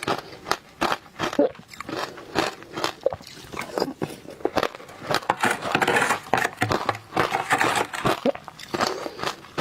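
Close-miked biting and chewing of frozen matcha ice: a rapid run of crisp, powdery crunches, densest about halfway through.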